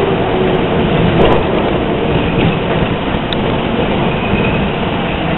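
NYCTA R38 subway car running along the rails through a station: a steady, loud rumble of wheels and running gear, heard from inside the car.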